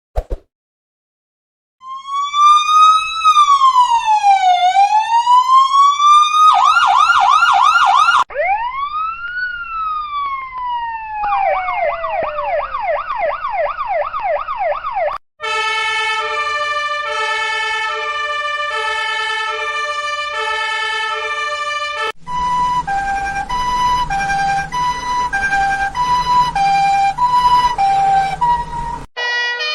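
A sequence of electronic emergency-vehicle siren patterns. It starts with a slow rising and falling wail and a brief fast yelp, then another wail and a rapid repeating downward sweep. From about halfway it switches to tones stepping between several fixed pitches, and near the end to a different stepped pattern with a low hum under it.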